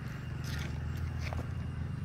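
Hands scratching and crumbling freshly laid blacktop that comes up loose and gritty, a few brief scrapes, over a steady low hum.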